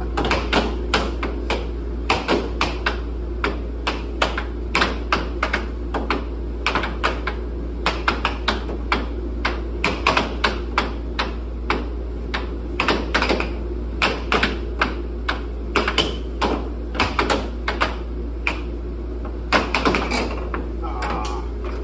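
Air hockey puck clacking off the mallets and the table's rails in quick, irregular hits, several a second, over the steady low hum of the table's air blower.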